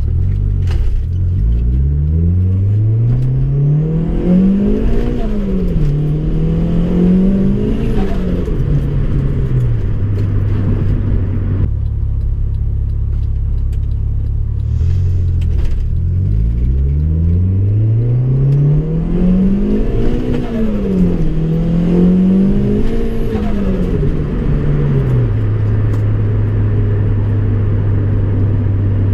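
Turbocharged Honda Civic engine revved up twice: each time the pitch climbs from idle, rises and falls for a few seconds, then drops back to a steady idle. The turbo flutters as the revs fall.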